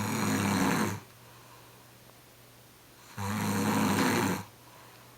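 A man snoring really loud in deep sleep after heavy drinking: two long, low, rasping snores on the in-breath, the first right at the start and the second about three seconds later, with quiet breathing between.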